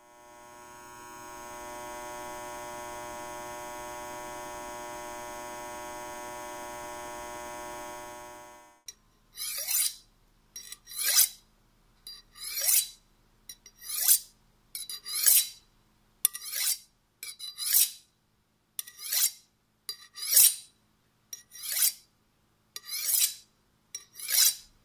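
Steady electrical hum of fluorescent ceiling lights, rich in overtones, fading in and cutting off suddenly after about nine seconds. Then a chef's knife drawn stroke after stroke along a honing steel: a metallic scrape roughly once a second.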